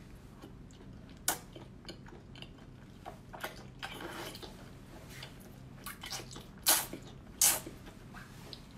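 Wet mouth sounds of a person sucking in and chewing octopus tentacles: scattered smacks and clicks, with a sharp slurp about a second in and two loudest slurps close together near the end.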